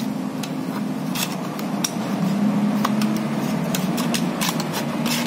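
Small cardboard product boxes being handled and opened: scattered light taps, clicks and scrapes of cardboard, over a steady low hum.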